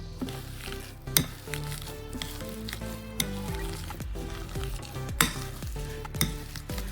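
Boiled potatoes being pressed and mashed in a bowl: wet, crackly squishing with a few sharp clicks of the utensil against the bowl, over background music.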